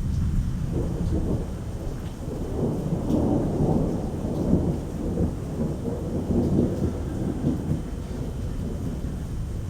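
Thunder rolling through steady rain in a strong thunderstorm, swelling about a second in, peaking a few seconds later and fading near the end.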